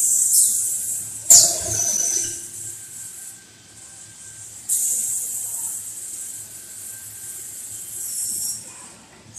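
Bursts of compressed-air hissing from the pneumatic valves and cylinders of an automatic glass-handling line. One starts sharply with a click about a second in, and a longer one runs from about five seconds in to near the end. Under them is a steady machine hum with a faint high whine.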